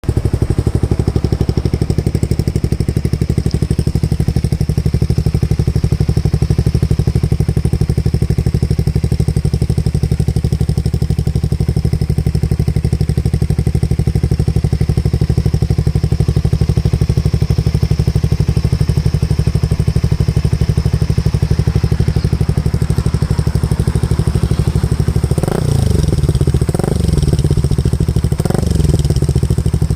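Suzuki Raider 150 Fi's single-cylinder four-stroke engine idling steadily through an Akrapovic aftermarket muffler. In the last few seconds it is given about three short throttle blips, each rising and falling quickly.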